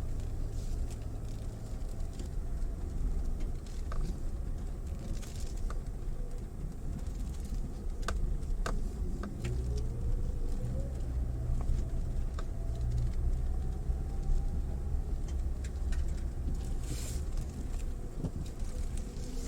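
A Mitsubishi Pajero Mini driving slowly over rough ground. The engine hums steadily, with a whine that dips about nine seconds in and then climbs again as the speed changes. Scattered clicks and knocks come from stones and bumps under the tyres.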